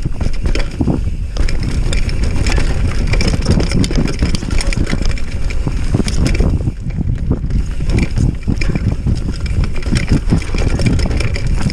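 Mountain bike riding fast down a dirt singletrack: tyres rolling over dirt and roots with the bike knocking and rattling over bumps, under heavy wind rumble on the camera microphone.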